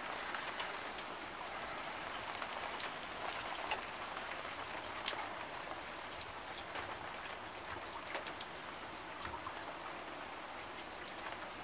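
Light rain falling: a steady hiss with scattered taps of individual drops.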